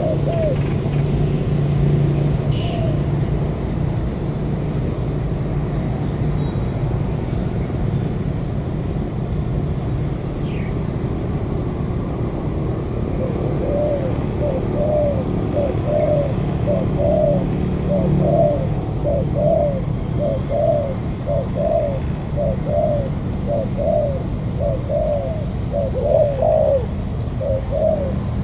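Spotted doves cooing: a few coos at the start, then from about halfway a steady run of short, repeated coos, a little more than one a second. A steady low rumble lies underneath.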